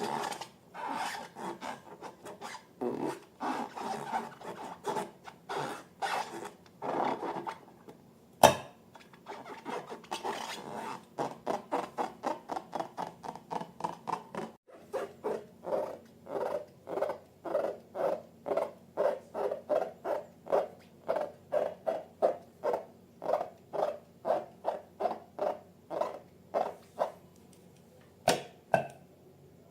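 Slime and balloons being worked by hand: repeated scraping and rubbing strokes, settling into a steady rhythm of about two a second. There is a sharp snap a little over a quarter of the way in and another near the end.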